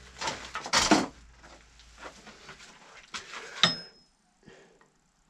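Metal hand tools, a steel center punch and a brass hammer, being picked up and handled on the workbench: scraping and rattling at first, then two sharp metallic clinks, the second with a brief high ring.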